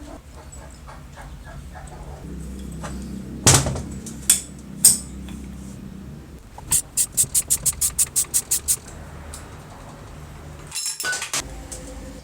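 Metal tools and parts clinking and knocking: three sharp knocks, then a quick even run of about a dozen metallic taps, and a short clatter near the end.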